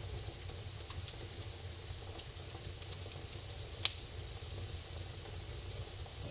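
Wood fire crackling and hissing in a fireplace, with scattered small pops and one sharper, louder pop a little before four seconds in.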